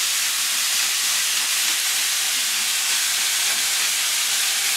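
Ground beef and diced bell pepper, zucchini and onion frying in a hot pan, a steady sizzle.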